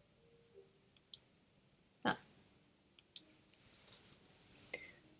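Faint, scattered clicks of a computer mouse and keyboard, about a dozen in all, the clearest a single click about two seconds in.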